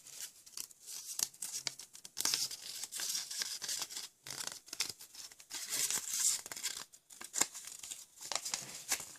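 Folded paper lottery slips rustling and crinkling as they are handled by hand: a busy, irregular crackle with a few brief pauses.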